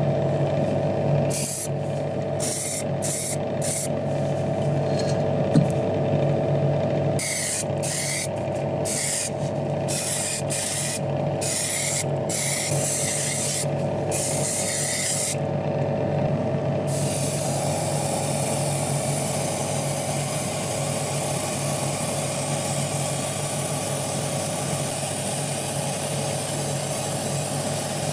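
Paint spraying onto small diecast model parts: a string of short hissing bursts, then a steady unbroken spray from a little past halfway. Under it runs a steady motor hum.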